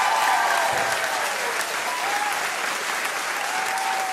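An audience applauding, with a long cheer held near the end.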